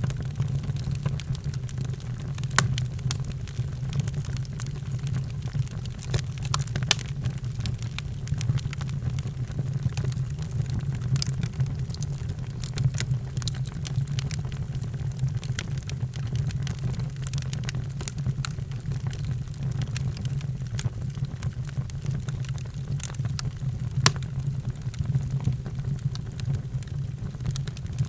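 Wood fire in a fireplace crackling, irregular sharp pops over a steady low rumble, with one louder pop near the end.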